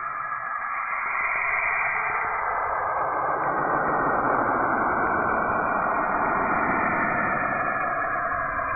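Spacecraft radio or plasma-wave emissions converted into audible sound: a steady, dense hiss with slowly drifting bands of pitch. It swells about a second in and deepens from about three seconds in.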